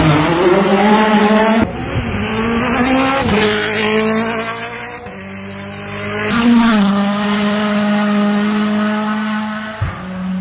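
Rally cars at racing speed, engines revving hard with pitch rising and dropping through gear changes. The sound switches abruptly several times between different cars passing.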